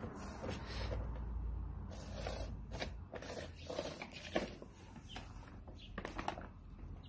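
A dog's head pushing around inside a plastic bag of dry dog food, crinkling and rustling the plastic in irregular bursts.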